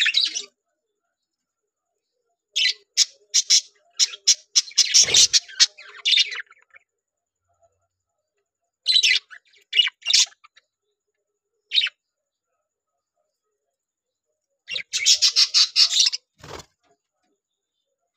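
Budgerigars chirping and chattering in bursts of rapid high chirps, with silent gaps between the bursts. Two brief low thumps come in, about five seconds in and near the end.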